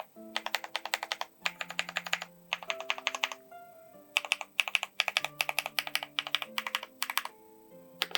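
Typing on a Daring Run Flip 6P mechanical keyboard built with HMX EMO switches and Osume Dusk keycaps: quick runs of key clicks with short pauses between them. Soft background music plays underneath.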